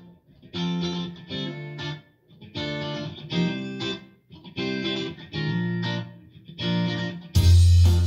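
Guitar music played through Jamo S803 bookshelf speakers: short plucked guitar phrases separated by brief pauses. About seven seconds in, a louder full band with heavy bass comes in.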